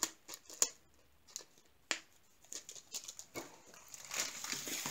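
Plastic-covered sticker strip being handled: a few sharp light ticks and taps, then the plastic film rustling and crinkling from about three seconds in, growing louder.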